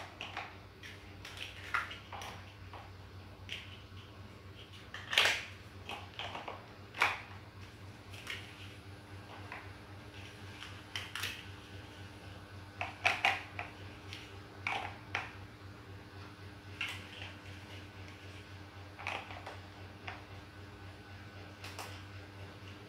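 Large plastic building blocks clicking and knocking as they are pressed onto a block-built model, in scattered sharp clicks at an irregular pace, with a faint steady low hum behind.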